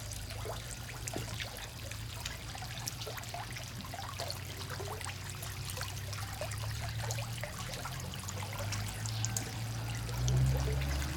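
Water splashing and trickling in a pond crowded with farmed frogs, many small irregular splashes and clicks over a low steady rumble.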